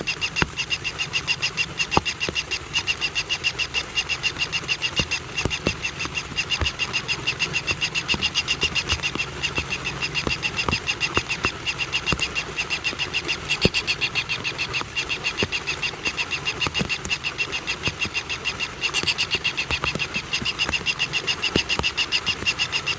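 A steady, rhythmic high-pitched chirping, repeated about four times a second without a break, from an animal calling in a natural setting, with scattered faint clicks.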